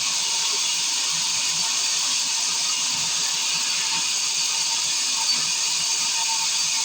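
Sawmill machinery running steadily, a constant hissing noise with no breaks.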